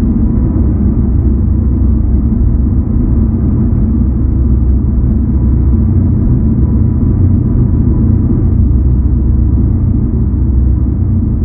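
Dark ambient drone: a deep, steady rumble, dense and low, with a faint thin tone held above it.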